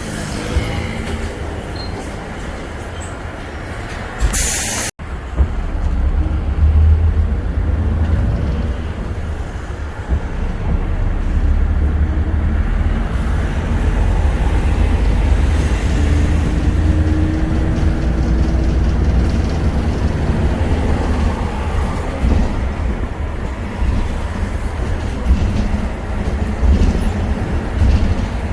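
Steady low rumble of a city bus on the move, heard from inside the cabin. About four seconds in there is a short burst of air hiss from the bus's pneumatics, then the sound cuts out for a moment.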